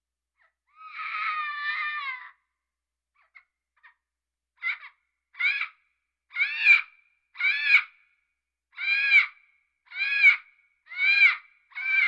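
A parrot calling: one long, wavering call about a second in, then, after a pause, a run of eight short arched calls at about one a second.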